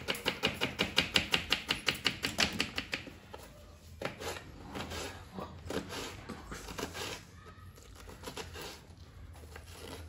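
Knife chopping onion on a wooden cutting board: a fast, even run of strokes for about the first three seconds, then slower, scattered cuts.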